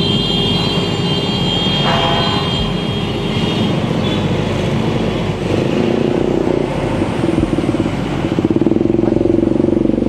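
Street traffic with a motorcycle engine running close by, growing louder over the last few seconds as it comes up.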